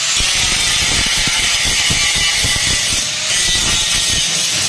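Handheld angle grinder grinding the sheet steel of a mini van's rear wheel arch, a steady high hiss of metal being ground back for bodywork repair, easing briefly about three seconds in.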